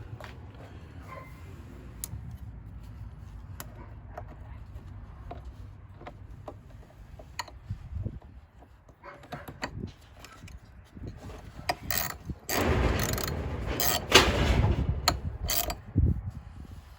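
Scattered metallic clicks of a 10 mm wrench working the car battery's terminal nut as the battery is reconnected, then a few seconds of louder clattering and rubbing near the end.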